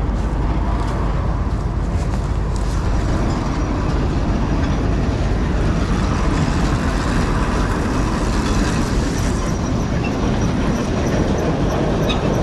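John Deere 4400 combine running steadily, its engine and machinery making a constant loud drone.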